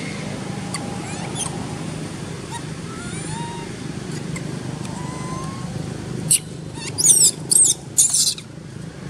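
A young long-tailed macaque screaming: a short shrill squeal about six seconds in, then three more sweeping squeals in quick succession near the end, over a steady low hum and a few faint bird chirps.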